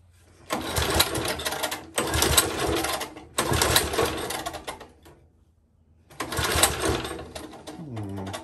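Old Tecumseh four-stroke edger engine being pull-started with its recoil starter: four pulls, each cranking the engine for a second or so, without it settling into a run. Near the end the engine spins down with a falling tone.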